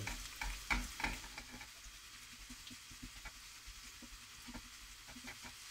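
Sliced onions sizzling in hot vegetable oil in a non-stick frying pan while being fried soft and translucent, with a wooden spatula scraping and clicking against the pan as it stirs them. The stirring clicks are busiest in the first second and a half, then come only now and then over the steady sizzle.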